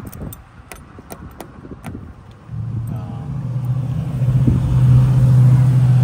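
A few light clicks and rattles of keys at a vehicle door lock, then from about two and a half seconds in a steady low motor-vehicle engine hum that grows louder and becomes the loudest sound.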